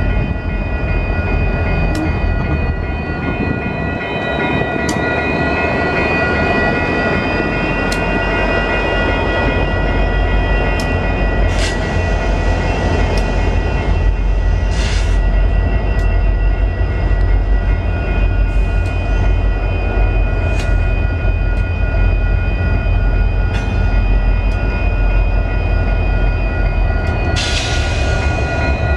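Union Pacific GP60 diesel-electric locomotives, each with a 16-cylinder EMD 710 engine, rumble past at low speed. Steady high ringing tones, a high squeal that dips and rises in pitch a few seconds in, and scattered sharp clanks ride over the rumble. Short hisses come about twelve and fifteen seconds in and again near the end.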